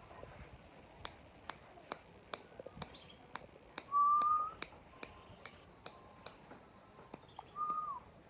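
Caged songbird: two clear short whistled notes, each rising slightly, the louder one about halfway through and another near the end that falls away at its close, over sharp ticks coming about two to three times a second.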